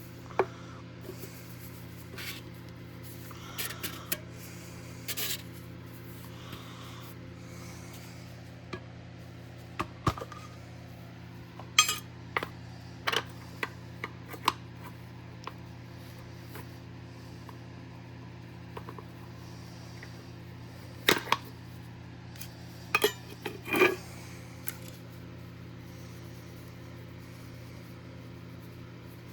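Scattered sharp metallic clicks, taps and short scrapes of small metal objects being handled on a hard surface, heaviest about a third of the way in and again past two-thirds, over a steady low hum.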